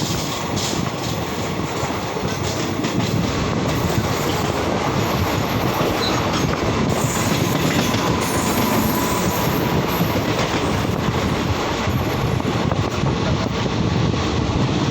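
Train running at speed on the rails: a steady, loud rumble of wheels and carriages, with a faint thin squeal from the wheels for a few seconds in the middle.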